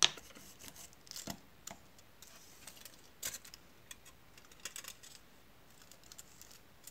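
A small sheet of aluminium foil crinkling and crackling as fingers press it into a miniature cardboard pizza box, in several short spells of rustling and little clicks. A sharp click at the start is the loudest sound.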